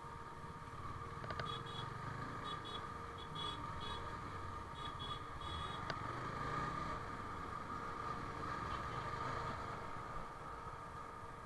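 Motorcycle engine running while riding in slow city traffic, with steady road and traffic noise. Between about one and a half and six seconds in there is a string of short, high beeps.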